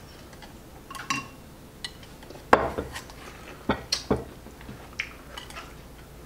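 Chopsticks clicking and knocking against ceramic bowls and plates as food is picked up, in a few scattered sharp taps: the loudest about two and a half seconds in, and two close together around four seconds in.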